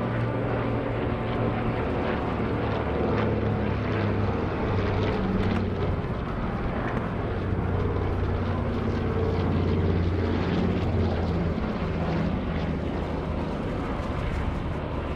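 Mitsubishi A6M2 Zero's radial engine and propeller droning steadily as the fighter flies aerobatics overhead, the pitch shifting a little as it manoeuvres and swelling slightly about two-thirds of the way through.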